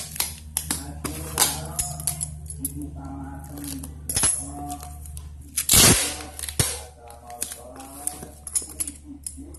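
Background music with a steady low hum, over the sounds of packing a cardboard box: a loud rip of packing tape being pulled off the roll about six seconds in, with taps and rustles as hands press tape onto the box.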